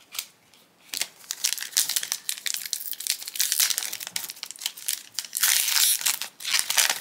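Foil trading-card booster pack wrapper crinkling as it is handled and torn open by hand. The crackling starts about a second in and is loudest a little after five seconds, when the wrapper is ripped apart.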